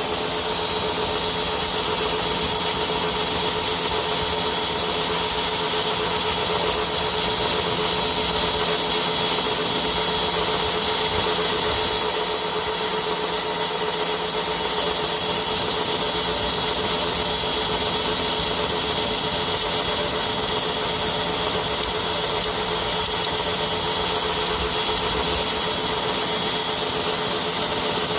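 Pressure washer running steadily: a motor hum with the loud hiss of the high-pressure water jet spraying a fibreglass boat hull to strip off old paint.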